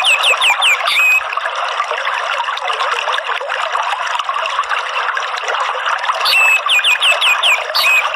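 Water trickling and running steadily, with a songbird giving two quick runs of about five sharply falling whistled notes, one at the start and another about six seconds in.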